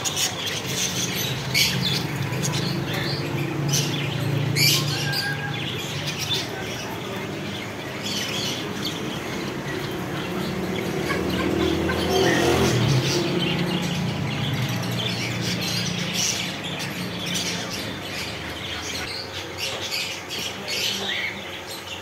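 Many caged birds chirping and squawking in short, overlapping calls, over a steady low hum.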